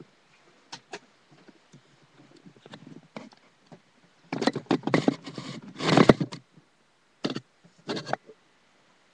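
Close handling and rustling noises near the microphone: scattered light clicks, a loud jumble of rustling and bumping for about two seconds midway, then two short knocks.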